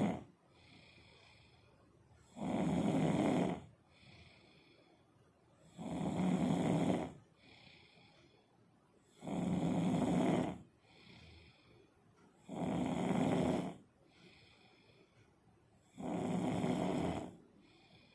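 Snoring in a steady rhythm: five long snores about three seconds apart, each followed by a quieter, breathy exhale.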